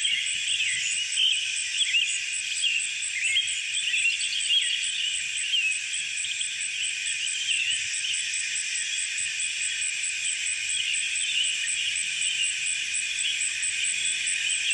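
Birds chirping and twittering continuously in many short, quick notes, over a steady, rapid, high-pitched pulsing.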